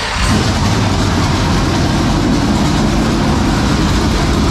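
Dirt late model race car's 465-cubic-inch V8 firing and running steadily at a loud idle, the sound filling out about a third of a second in as it catches. It is running only on the fuel primed into the carburetor, its fuel pressure sinking from 3 psi toward zero because the fuel pump is not delivering.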